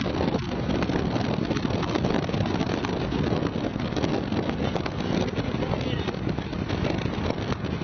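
Wind buffeting the microphone: a dense, steady low rushing with constant flutter.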